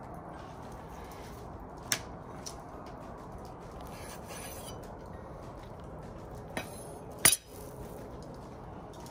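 Chef's knife trimming fat from beef fillets on a bamboo cutting board: a few sharp knocks of the blade against the wood, the loudest about seven seconds in, and a short cutting stroke around four seconds in, over a steady background noise.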